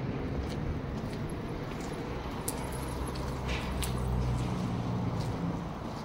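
Low engine hum of a motor vehicle running nearby, swelling in the middle and easing off near the end, over street ambience with a few light clicks and a brief rattle.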